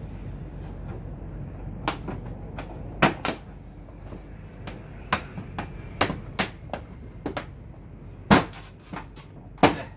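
Palms slapping and pressing a Honda PCX 125's plastic front cowl panel to seat it on its clips. The result is an irregular string of sharp plastic knocks and snaps, the loudest about eight seconds in, over a steady low background hum.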